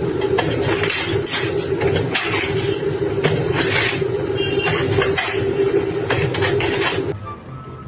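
A heavy machine running with a steady hum while something is crunched and cracked in irregular bursts. The sound stops about seven seconds in.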